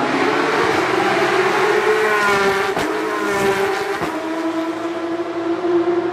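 Race car engines heard from beside a street circuit, a continuous high-pitched drone that wavers slightly in pitch, with a higher engine note sliding down about two to three seconds in.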